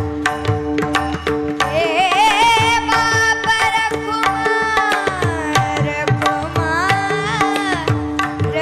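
Devotional bhajan music: a voice sings long, wavering held phrases with vibrato over steady drone notes and a running tabla rhythm. The vocal enters about two seconds in, slides down in pitch, and returns near the end.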